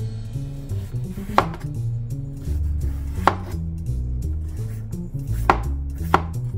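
A chef's knife slicing a peeled cucumber, the blade knocking sharply on a plastic cutting board four times, spaced a second or two apart with the last two close together. Background boogie-woogie music plays underneath.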